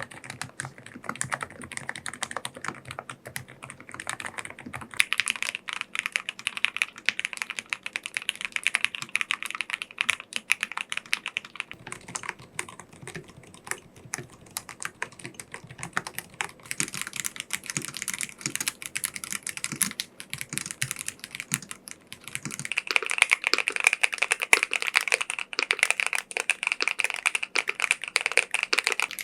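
Fast, steady typing on a series of different mechanical keyboards, one after another. The tone of the keystrokes changes abruptly about every five or six seconds as each new board takes over, with some brighter and clackier and others deeper or more muted.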